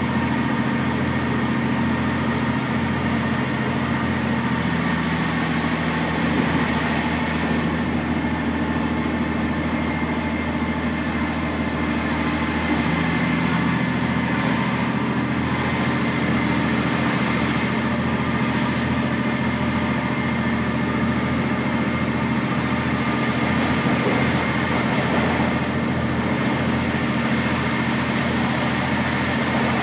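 Diesel railcar engine running steadily, heard from inside the passenger cabin as a continuous low drone. Its pitched tone shifts slightly about four seconds in and again around thirteen seconds.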